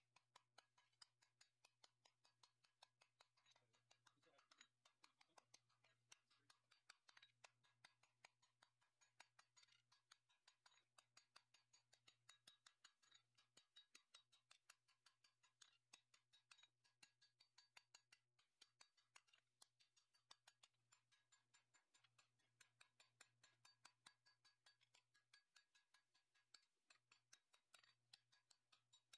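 Very faint, rapid hammer blows on a red-hot steel sword blade on an anvil, about four or five strikes a second, over a low steady hum. The blacksmith is drawing out and shaping the blade.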